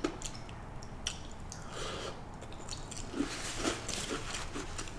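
A person biting into and chewing a panko-crusted deep-fried scallop close to the microphone, with scattered small crunching clicks.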